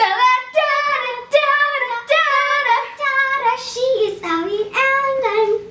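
Two young girls singing a tune together, with long held notes.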